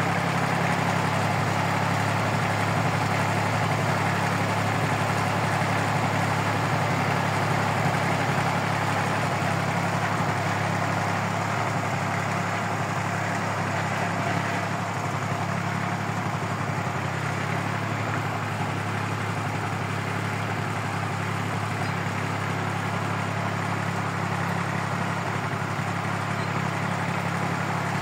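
Small red farm tractor's engine running steadily as the tractor drives slowly over rough grass, a steady low hum, slightly quieter in the middle.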